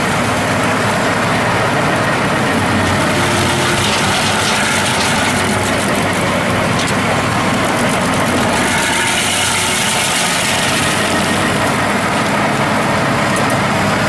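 PTO-driven MeriCrusher MJH-1.2 STG stump crusher on a 150 hp farm tractor, its rotor grinding stumps and topsoil, over the tractor's engine working steadily under the load. A few sharp ticks rise above the steady grinding.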